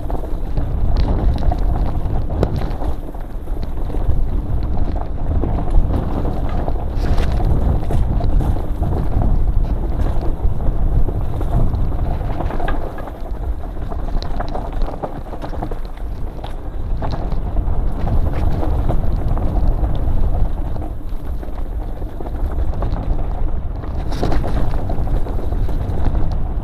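Downhill mountain bike rattling and knocking as it rides fast over rocky singletrack, under a steady rush of wind on the microphone.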